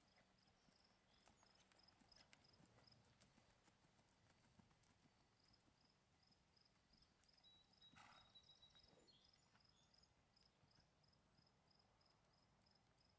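Faint hoofbeats of a paint horse jogging on soft arena dirt, with a high chirp repeating about three times a second behind them.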